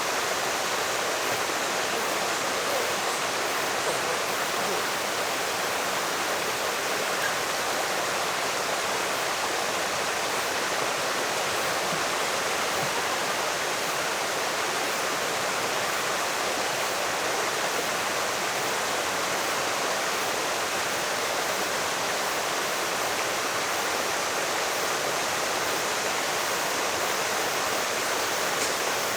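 Valley stream water rushing steadily.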